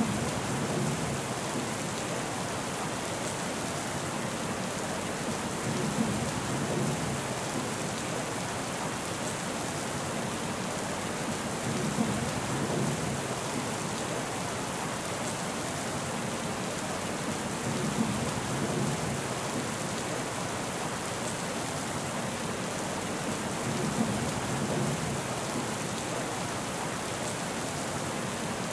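Steady, even rain hiss. A short sharp tap followed by a brief low rumble repeats about every six seconds, evenly spaced like a looped rain recording.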